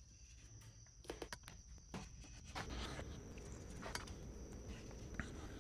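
Faint scratching and light taps of a marker on the metal rim of an exhaust fan, marking out the bolt holes where its grate was.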